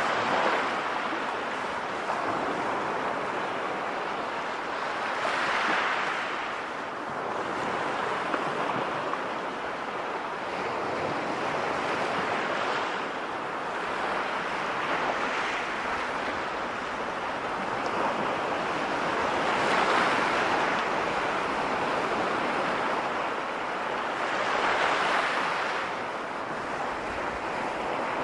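Sea waves breaking and washing on a shore, a steady rush of surf that swells and falls back every few seconds.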